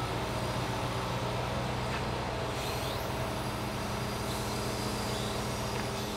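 Log truck's engine and hydraulic loader crane running with a steady hum as the grapple lifts and swings a log, with a few faint knocks.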